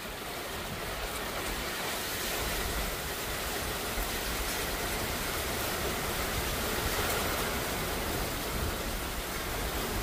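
Heavy thunderstorm rain pouring down with wind: a steady rushing hiss that builds a little over the first couple of seconds, then holds.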